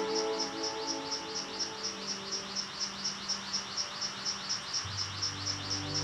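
A rapid, even train of high chirps, about four a second, from an animal in the forest. Soft background music fades out about two seconds in and comes back with a low bass near the end.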